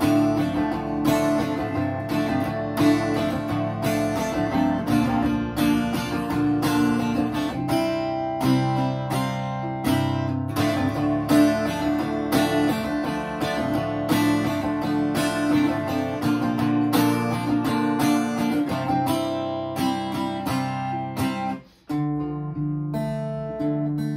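Acoustic guitar strummed in a steady rhythm, chords ringing, as a song's instrumental intro; near the end the strumming breaks off for a moment and picks up again.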